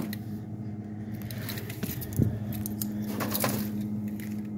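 Light rustling and knocking of things being handled in an open refrigerator, with a louder knock about two seconds in, over a steady low hum.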